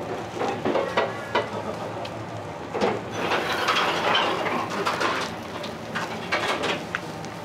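Liquid poured in a spiral onto a hot iron griddle, sizzling, the sizzle swelling about three seconds in. Sharp clinks of metal utensils come and go.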